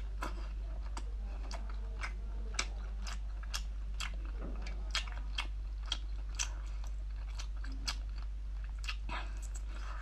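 Close-up mouth sounds of someone eating braised abalone: chewing with irregular wet smacks and clicks, two or three a second, over a steady low hum.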